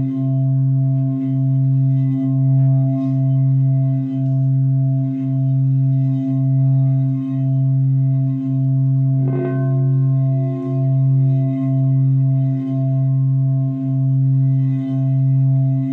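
Large quartz crystal singing bowl sounding one sustained low tone with steady overtones above it, a wand circling the rim and making the tone swell and fade about once a second. A brief light knock about nine seconds in.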